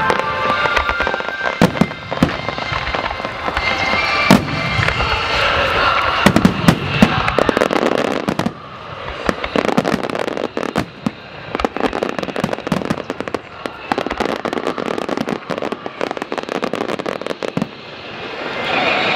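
Large fireworks display: shells bursting in a dense barrage of booms and crackling, easing about halfway through into a quieter stretch of rapid crackling before building again near the end.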